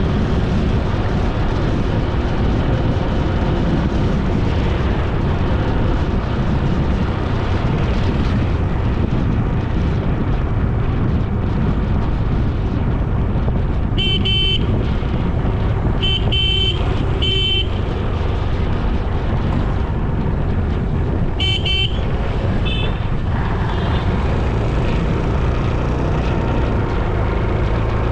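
Steady road-ride noise of a motorbike on the move, engine and wind rumble, with a horn giving several short toots in the second half.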